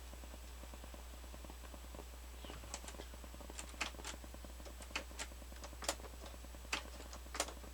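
Crown CSC-850F boombox amplifier at full volume in tape mode, giving a low hum and a fine, fast crackle, with sharp irregular pops starting about two and a half seconds in. It should give nothing but hiss: the noise is an amplifier fault that the owner thinks comes from a dirty record/playback switch.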